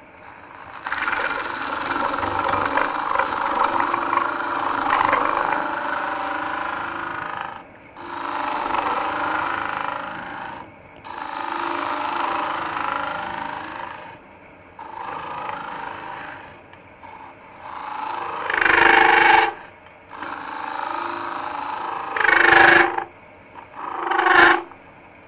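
A ring tool cutting inside a spinning end-grain bowl of green, wet wood on a lathe, in a series of hollowing cuts each a few seconds long with short pauses between. In the last few seconds come several shorter, louder bursts of chatter, the tool vibrating because it reaches too far out over the tool rest.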